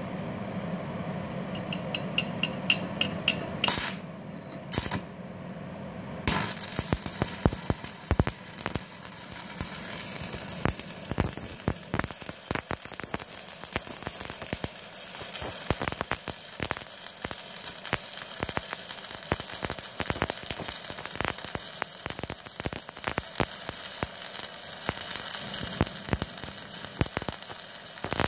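Stick (MMA) arc welding with a 4 mm electrode on a MultiPro VRD MMA 400 A-MZ IGBT inverter welder set to 157 A. There are two brief sputters around four and five seconds in, then the arc catches about six seconds in and burns with a steady crackling sizzle full of small pops.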